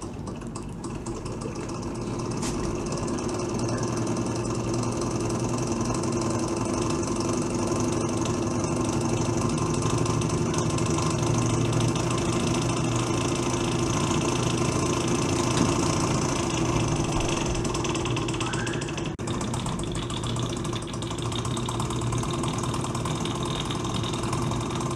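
Miniature brass model steam engine with a double-acting cylinder and rotary valve, running steadily on steam from a small glass boiler. It gives a continuous mechanical running sound that builds over the first few seconds, with a brief dip about two-thirds of the way through.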